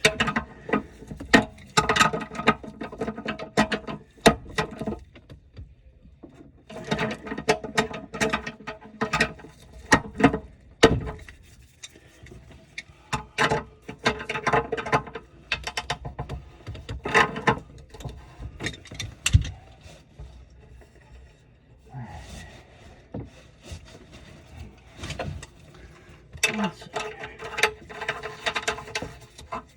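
Plastic sink drain fittings being worked by hand: repeated clicks and knocks with short squeaks of plastic rubbing on plastic. They come in bouts of a few seconds as a slip-joint connection is fitted and tightened.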